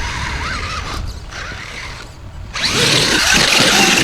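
Radio-controlled scale off-road car's motor and gears whirring with a wavering whine as it drives. It gets much louder and harsher from about two and a half seconds in.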